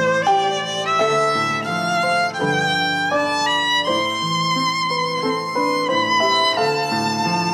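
Violin playing a slow melody with vibrato on its held notes, over piano accompaniment.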